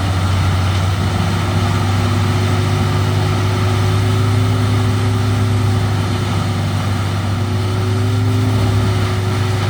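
Peterson 4310B drum wood chipper running steadily, its large engine a loud, even drone with a strong low hum and a steady higher tone above it.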